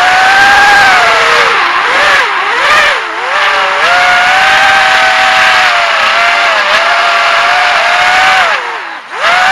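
Electric motors of a GEPRC AX-5 FPV racing quadcopter whining in flight, heard from a camera on the frame. The pitch wavers up and down with throttle, drops sharply for a moment near the end as the throttle is cut, then comes straight back up.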